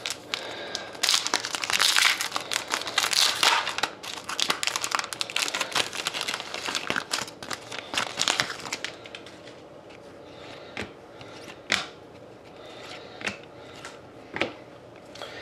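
Foil wrapper of a trading card pack crinkling and tearing as it is opened and the cards pulled out, for about eight seconds. After that come quieter scattered ticks and rustles of the cards being handled.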